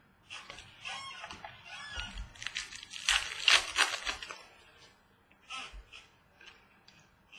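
Foil wrapper of a Certified football card pack crinkling as it is torn open and handled, loudest about three to four seconds in. Softer rustles and taps of cards being handled come before and after.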